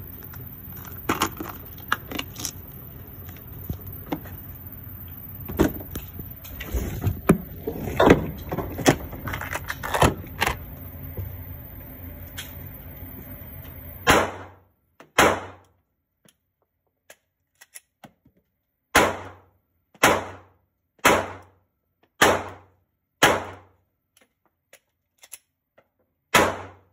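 Eight Glock pistol shots, fired singly in an uneven rhythm with pauses of one to three seconds and faint clicks in the longer gaps. Before them, about fourteen seconds of handling noise: scattered clicks and knocks over a steady hiss.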